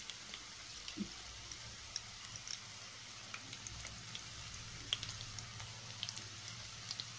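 Gram-flour-coated okra slices deep-frying in hot oil in a kadai: a steady sizzle with scattered small crackles and pops, over a low steady hum.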